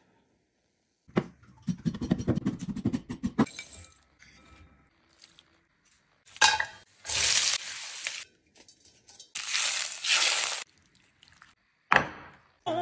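Kitchen prep sounds around a glass mixing bowl and a metal spoon: a quick run of clinks and knocks for a couple of seconds, then two loud hissing bursts of about a second and a half each, and one sharp knock near the end.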